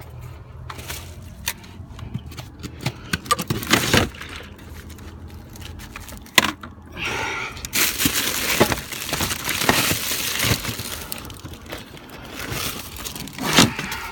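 Handling noise: irregular sharp clicks and knocks, then a few seconds of crinkling, rustling noise about eight seconds in, with a louder knock near the end.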